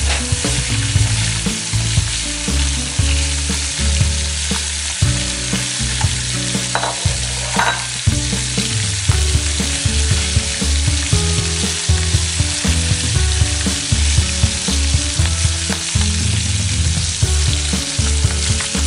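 Whole climbing perch (koi fish) sizzling steadily as they fry in hot oil in a kadai, stirred and turned now and then with a metal spatula.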